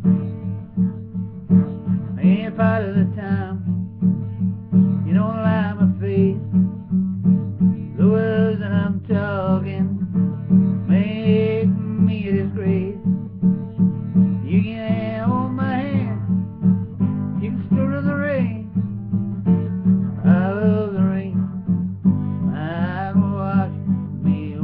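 Acoustic guitar strummed in a steady rhythm, with a man's voice singing drawn-out, wavering phrases over it every few seconds.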